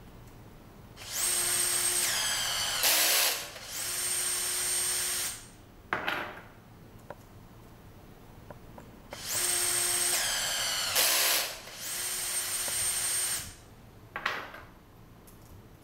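Brushless cordless rivet nut tool running its automatic-reversing cycle twice: the motor and gearbox whine steadily forward, slow with a falling pitch and a sharp click as the drive switches direction, run again in reverse, then spin down.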